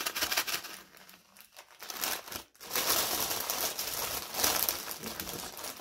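Thin plastic bags crinkling as hands rummage through a large clear bag packed with small zip-lock bags of diamond painting drills. The crackling dies down for about a second a little way in, then runs on steadily from about halfway.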